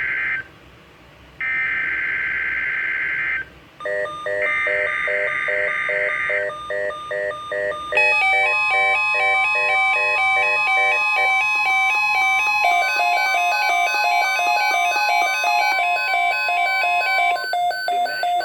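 NOAA Weather Radio emergency alert: the warbling data bursts of the SAME digital header (the end of one, then two more), followed by a weather radio receiver's electronic alert, a rapid run of stepping beeps. From about eight seconds in, the steady 1050 Hz weather radio warning tone is held under the beeps for about nine seconds.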